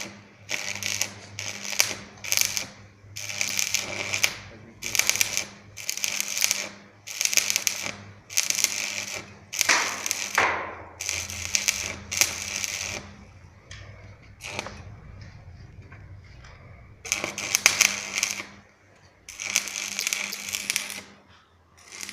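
Electric arc welder's arc crackling and spitting in short bursts, about a dozen strikes with a steady low hum underneath. The arc keeps breaking off after a second or less, as happens when a beginner is learning to strike and hold the arc.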